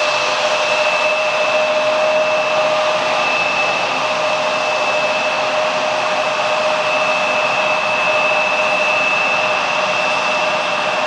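Jet engines of a twin-engine airliner on final approach, giving a steady high whine over a broad rushing noise.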